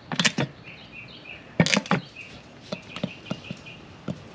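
Plastic ketchup squeeze bottle sputtering as it is squeezed upside down into a bowl: short, irregular splats and squirts of ketchup and air, in clusters near the start and about a second and a half in, then single spurts.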